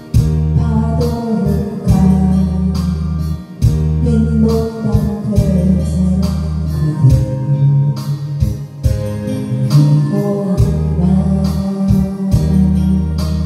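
A woman singing a Korean ballad into a karaoke microphone over the song's backing track, which carries a bass line of long held notes.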